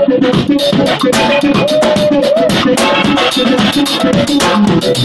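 Live jazz-fusion band playing loudly: a drum kit keeps up busy drum and cymbal hits under guitar and other instruments, with a melodic line that bends in pitch about two seconds in.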